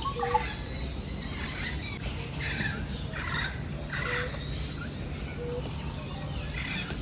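Birds calling: a run of raspy, chattering calls about a second apart in the middle, with short repeated single notes, over a steady low hum.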